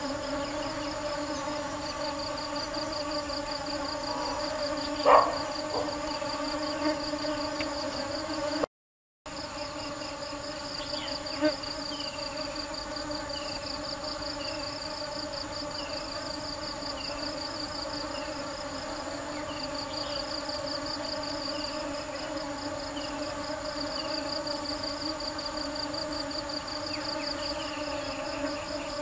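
Honeybees buzzing steadily, under a high, fast-pulsing insect trill. About five seconds in there is a brief loud knock, the sound drops out for about half a second near nine seconds, and from about eleven seconds a faint short falling chirp repeats roughly once a second.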